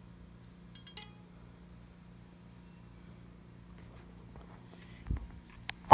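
Steady high drone of insects, with a light tap about a second in, a low thump near the end and then a sharp, loud knock.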